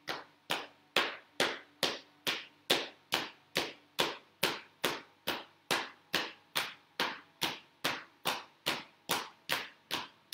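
Hands slapping a raised thigh in a steady rhythm, about two strikes a second: Do-In self-massage percussion along the leg.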